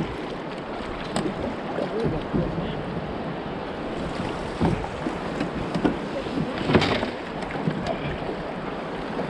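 Steady rush of river current running over shallows and rocks around a kayak, with a few brief knocks and splashes from paddle and hull, the loudest about seven seconds in.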